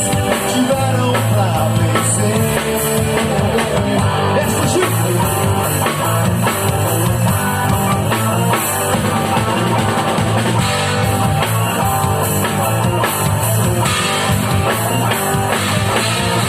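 A live band playing an instrumental passage of a gospel rock song, with drum kit, electric guitar and bass and no singing.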